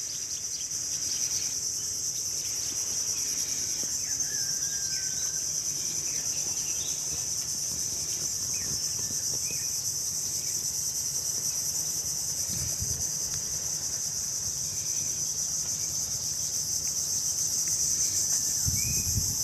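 Steady high-pitched insect chorus buzzing without a break, with a faint low rumble, a few short faint chirps and a couple of low thumps.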